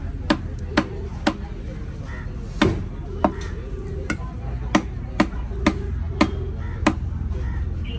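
Knife chopping through tuna flesh into a wooden log chopping block: about a dozen sharp knocks at an uneven pace, roughly two a second at the quickest.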